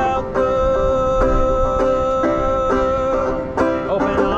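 Banjo picked in a steady bluegrass-style pattern, strokes about twice a second, with one long note held above it for most of the stretch.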